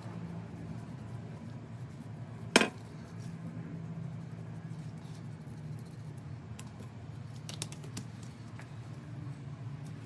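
Knife handling while trimming a raw brisket on a plastic cutting board: one sharp clack about two and a half seconds in as a knife is set down, then light ticks and scrapes of the blade, over a steady low hum.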